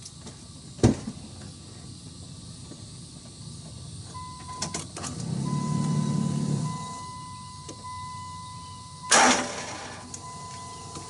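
FASS DDRP electric fuel lift pump on a Dodge Ram's 24-valve Cummins starting up about four seconds in as the key is cycled, then running with a steady whine while it builds pressure to the VP44 injection pump. A sharp knock about a second in and a louder thump near the end.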